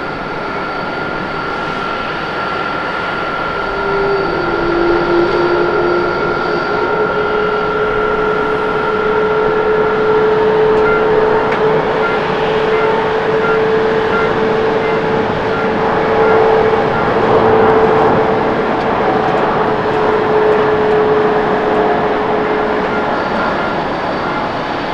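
Airbus A350-900's Rolls-Royce Trent XWB turbofan engines at takeoff thrust during the takeoff roll and climb-out: a steady jet roar with thin whining tones, growing louder about four seconds in, loudest past the middle, then easing as the plane climbs away.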